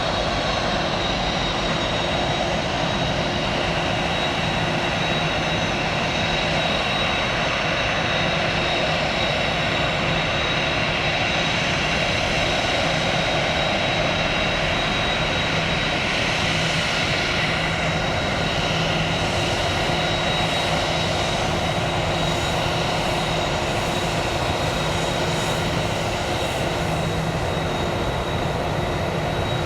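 Jet airliner engines running steadily, a continuous rush of noise with a steady high-pitched whine over it.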